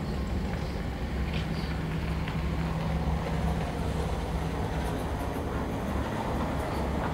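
Steady low engine rumble with a hum that fades in and out.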